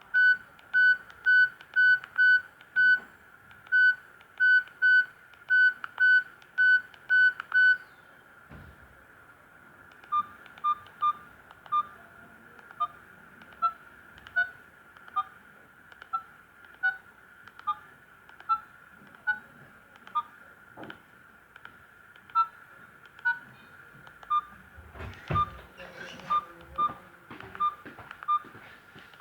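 Philips E106 mobile phone playing its built-in ringtones through its small speaker: first a quick run of identical short beeps for about eight seconds, then, after a short pause, a simple melody of short beeping single notes at changing pitches. A brief burst of noise cuts across the melody about 25 seconds in.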